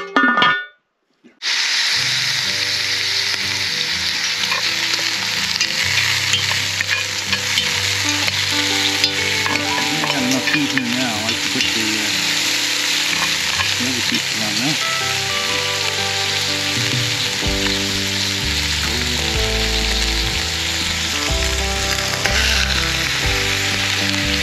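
Fat pieces sizzling steadily in hot cast iron as they render down into cooking oil; the sizzle starts abruptly about a second and a half in. Low, shifting tones run underneath.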